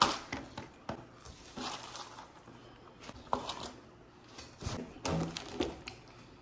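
Burger King takeout packaging being handled: scattered light rustles, taps and clicks of paper wrapper and containers.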